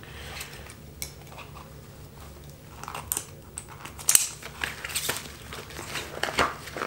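Small roll-top dry bag being handled: its waterproof fabric rustles and crinkles as the top is folded and rolled down to seal it, with a few sharper crinkles around four and five seconds in.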